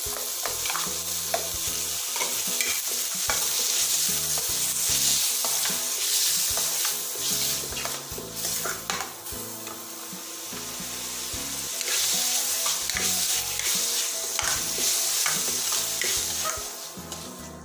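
Chopped tomato, capsicum and onion sizzling in hot oil in a stainless steel kadai while a spatula stirs and scrapes through them, with many small clicks of the spatula against the pan.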